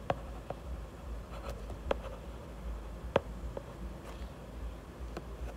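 Stylus tapping and scratching on a tablet screen during handwriting: a few short, sharp taps, the loudest about three seconds in, over a faint steady low hum.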